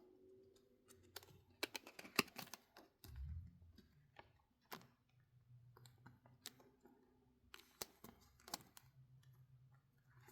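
Faint, scattered clicks and taps of trading cards being handled and set down on a table, with a soft thump about three seconds in.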